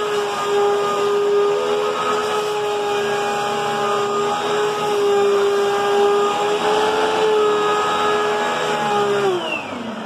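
Hoover Agility Cyclonic bagless upright vacuum running loud while pushed over carpet, its motor giving a steady high whine. About nine seconds in it is switched off and the whine falls in pitch as the motor winds down.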